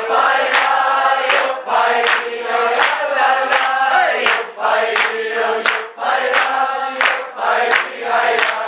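Several voices singing a drawn-out sung refrain together, accompanied by chords strummed on a small guitar at a steady beat of about three strokes every two seconds.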